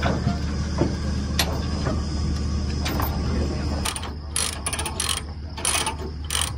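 Ratchet chain binder being cranked to tighten a tie-down chain on a load: a run of quick ratchet clicks, about three a second, starting about four seconds in. Before that there are a few scattered metal clinks over a low steady hum.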